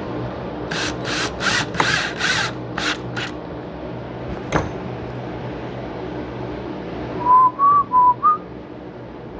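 A drill run in about seven short bursts, driving screws, followed by a single sharp click. Near the end a person whistles four short notes.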